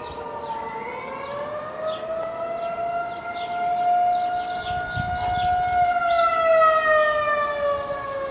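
Outdoor tornado warning siren wailing. Its pitch rises about a second in, holds steady, then falls away near the end, and it is loudest in the middle. Birds chirp faintly above it.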